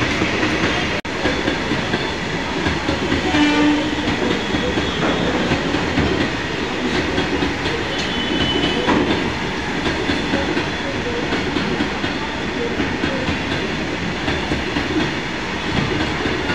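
Freight train of tank wagons running past close at speed, with steady wheel-on-rail rumble and clatter. There is a short tone about three and a half seconds in.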